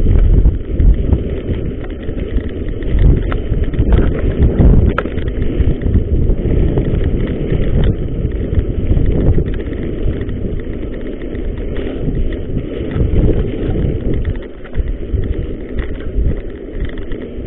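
Mountain bike descending a wet dirt singletrack at speed: wind rumbling on the microphone over the tyres rolling on the trail and the bike rattling over bumps, with a few sharp knocks scattered through.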